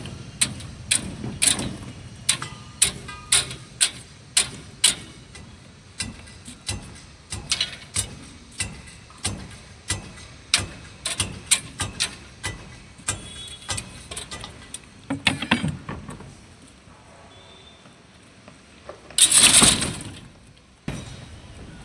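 Hammer blows on construction work, struck repeatedly at about two to three a second, then tailing off. Near the end there is a single loud burst of noise lasting over a second.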